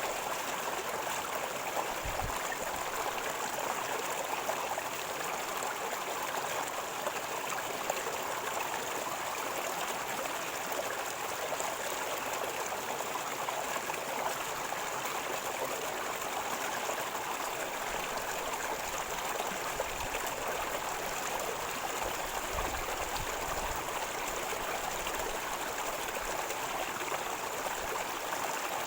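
River water flowing and gurgling over stones: a steady, even rush of running water.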